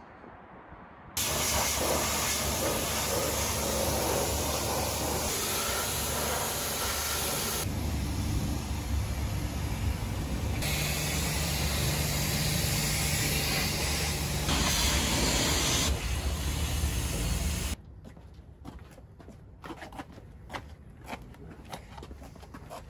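High-pressure jet-wash spray blasting mud off a vehicle: a loud, steady hiss of water that shifts in tone a few times and cuts off suddenly near the end. Lighter clicks and rustles follow.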